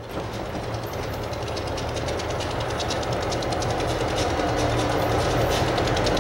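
A pair of EMD GP35 diesel locomotives approach, pulling a train of about 30 cars. The engines run with a steady low drone and faint regular clicking, growing steadily louder as the train comes closer.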